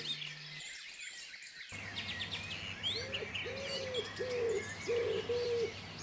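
Wood pigeon cooing, a run of about five soft, low coos starting about three seconds in, over faint high chirps of small songbirds.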